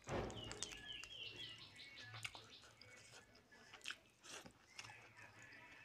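Close-up eating sounds of chicken curry and rice eaten by hand: wet squelching and smacking as the fingers work the saucy chicken, then biting and chewing on a chicken drumstick. The loudest sound is a wet squelch right at the start.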